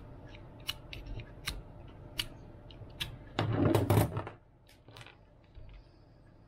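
Small clicks and taps of a metal vernier caliper being handled against a cylindrical spacer. About three and a half seconds in there is a louder clatter lasting about a second as the caliper is set down on a cutting mat, followed by a few softer clicks.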